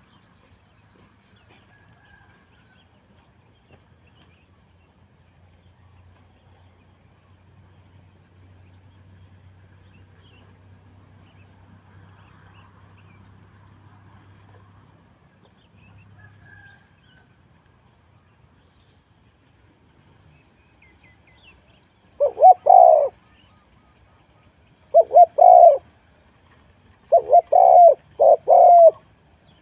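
Spotted dove cooing: four short coo phrases, about two to three seconds apart, come in the last eight seconds after a long stretch of faint background.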